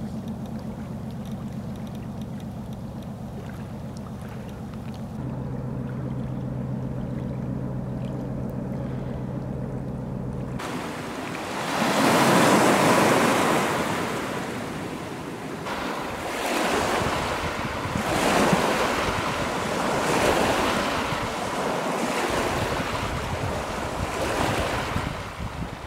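A container ship's engines give a steady low hum of several even tones across the water. About ten seconds in, small waves wash in and break on a stony shore, surging about every two seconds.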